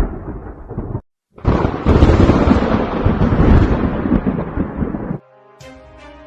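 Thunder rumbling in a storm, cut off suddenly about a second in, then after a brief gap a louder peal of thunder lasting about four seconds. Music with a pitched melody comes in near the end.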